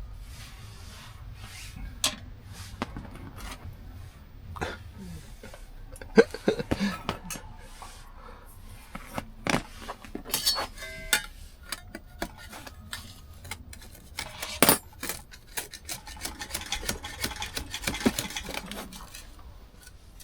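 Metal cooking utensils clinking and tapping against each other in an irregular run of sharp knocks, two of them markedly louder, about six seconds and fifteen seconds in.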